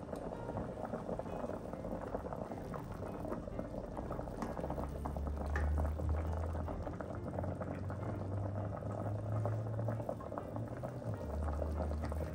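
Chicken and onion broth boiling hard in a stainless steel pot: a steady bubbling and popping. A low hum comes in a few seconds in and drops out briefly near the end.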